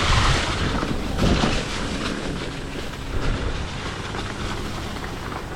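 Hardtail mountain bike rolling along a dirt trail: continuous tyre and frame rumble with scattered light rattles, easing off gradually as the bike slows.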